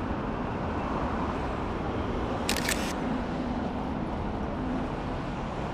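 A camera shutter fires with a brief click about two and a half seconds in, over the steady hum of street traffic.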